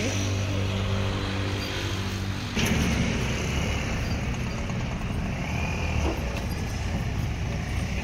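Outdoor roadside noise with a motor vehicle engine running steadily. The sound changes abruptly about two and a half seconds in to a denser noise, as of passing traffic.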